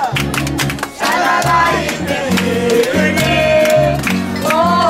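Live acoustic band music: voices singing over strummed guitar and a plucked upright double bass stepping from note to note.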